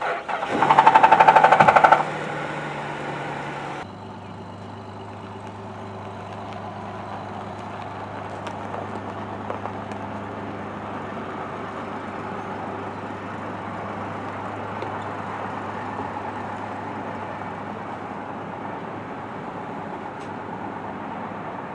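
A Cadillac engine starting: a loud, fast rattle for about a second and a half as it catches, then a steady idle that drops to a lower, even idle about four seconds in. The owner suspects a worn timing chain in this engine.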